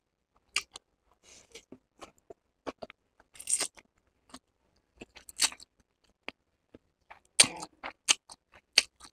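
Close-miked eating of chowmein noodles: slurping strands into the mouth and chewing, heard as a string of short wet clicks and smacks with a few louder slurps.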